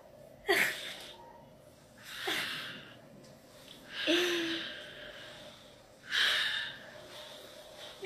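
A person's breathy, wordless vocal sounds: gasps and snort-like exhalations, four short bursts about two seconds apart. The first is sharp and drops in pitch. One in the middle carries a brief voiced tone.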